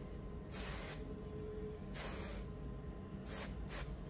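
Aerosol hair spray can hissing in separate sprays onto wet hair: two half-second sprays, then two quick short spurts near the end.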